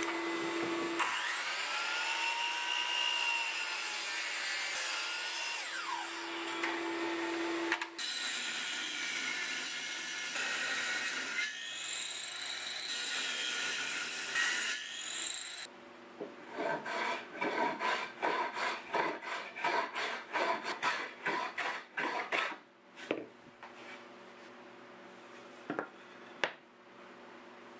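Power saws cutting solid walnut, a miter saw and then a table saw, running loudly for about fifteen seconds. Then a walnut board is rubbed back and forth on a flat glass plate in quick strokes, about three a second, which stop after about seven seconds, leaving a few light knocks.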